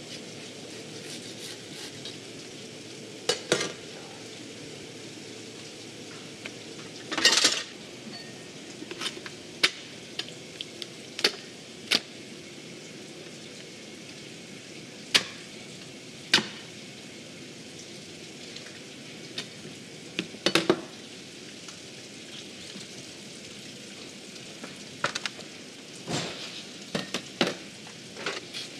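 Knife and handling sounds from butchering a giant bluefin tuna on a plastic cutting board: scattered sharp knocks and clicks of the blade and carcass, the loudest a short rough burst about seven seconds in, over a steady hiss.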